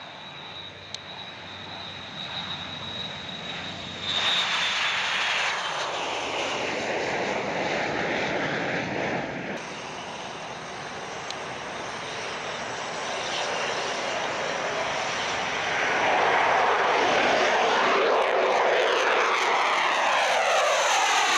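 Jet engines of aircraft taking off, the Boeing MQ-25 unmanned tanker and an F/A-18. A steady high whine gives way about four seconds in to a louder rushing roar that changes abruptly between shots. It grows loudest in the last few seconds, with a sweeping, phasing rush as a jet climbs past.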